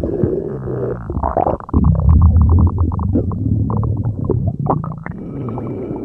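Growling stomach sound effect: a loud, low rumble that breaks into a fast run of gurgling pulses about two seconds in, then shifts into a different, smoother rumble near the end.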